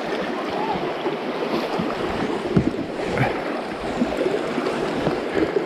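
Fast river water rushing through a mill sluice's metal grille and churning against an inflatable kayak, with a few scattered knocks.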